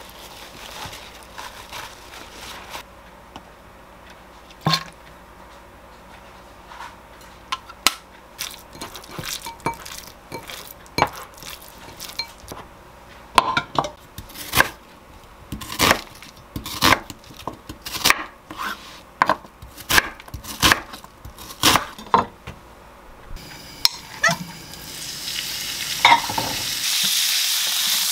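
A knife chopping an onion on a wooden cutting board, a long run of sharp, uneven chops. Near the end, pork goes into a hot pan with olive oil and starts sizzling, growing louder as it is stir-fried with a wooden spatula.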